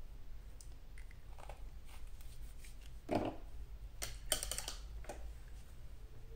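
Light clicks and taps of paint pots and a brush being handled on a work table, with a louder knock about three seconds in and a quick run of sharp clicks a second later.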